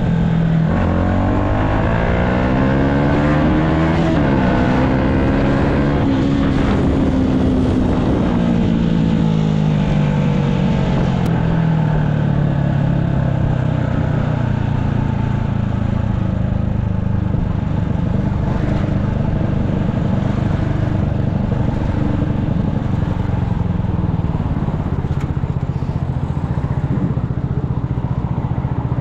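Yamaha MT-125's single-cylinder four-stroke engine revving up over the first six seconds, with a brief drop in pitch about four seconds in. It then winds down slowly and runs at a fairly steady lower pitch.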